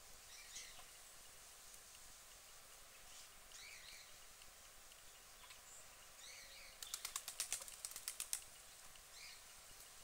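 Quiet outdoor background with small birds chirping faintly now and then. About seven seconds in comes a quick flurry of a dozen or so sharp clicks or flutters lasting about a second and a half.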